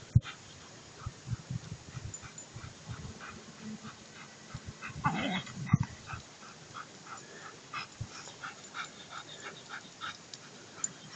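German Shepherd dog whining and yipping: a drawn-out, wavering whine about five seconds in, then a run of short, high yips several times a second.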